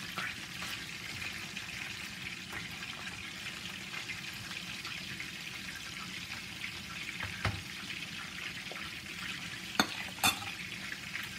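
Fish pieces sizzling in hot oil in a frying pan, a steady hiss, with a few sharp clicks in the second half, the loudest two close together near the end.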